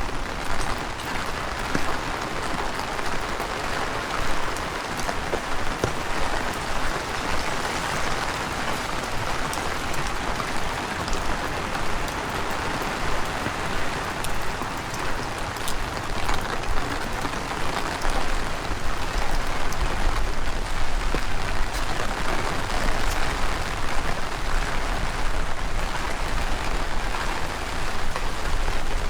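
Heavy rain falling steadily, a dense hiss of many drops pattering. A low rumble of strong wind on the microphone grows stronger about two-thirds of the way through.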